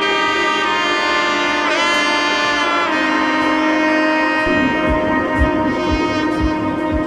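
Background music: held melody notes over sustained chords, with a steady drum beat coming in a little past halfway, about two beats a second.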